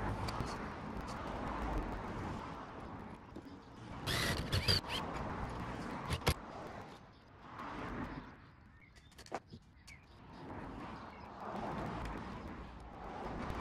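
Cordless drill-driver briefly driving a self-drilling tek screw through a solar panel mounting bracket into the van's sheet-metal roof, a short burst about four seconds in, followed by a few sharp clicks of the tool and screws being handled on the roof.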